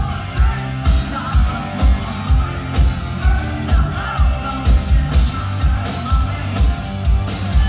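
Hard rock band playing live: lead vocals over drums, bass and electric guitars, with the kick drum landing about twice a second.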